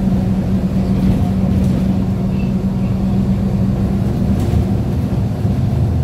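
Interior of a MAZ 103.485 city bus under way, heard near the rear door: its Mercedes-Benz diesel engine running steadily under a constant low hum, with road and body noise.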